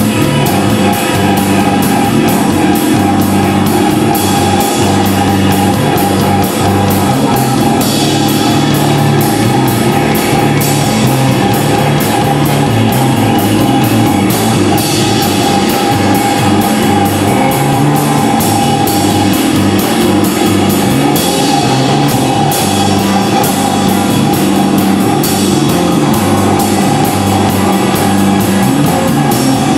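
Live improvised band jam: a drum kit playing busy, closely spaced hits over an electric bass moving between low notes, with electric guitar and electronic loops filling the mix, loud and unbroken.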